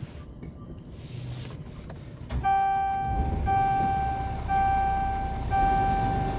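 Scania R truck's dashboard warning buzzer starting about two seconds in and sounding a steady beep about once a second, each tone lasting nearly a second with a short break, while a red warning message shows on the instrument display. Under it the truck's diesel engine idles with a low rumble.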